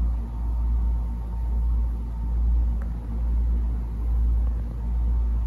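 A loud, steady low rumble that swells and eases gently, with a faint thin hum above it.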